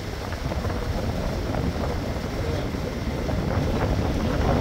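Wind buffeting the microphone and water rushing along the hull of a sailboat under way, growing a little louder toward the end.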